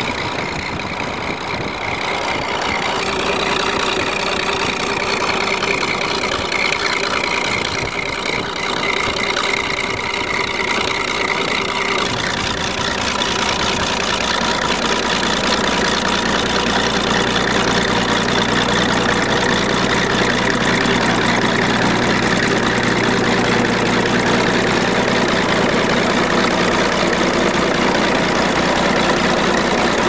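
Crawler bulldozer's engine running continuously as the machine pushes snow. For the first dozen seconds or so its pitch drifts up and down; after that it settles into a steadier, slightly louder drone with a strong low hum.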